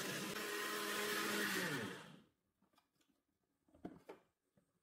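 Oster countertop blender running at speed, beating eggs, sugar and butter. About two seconds in the motor winds down in pitch and stops, and two light knocks follow near the end.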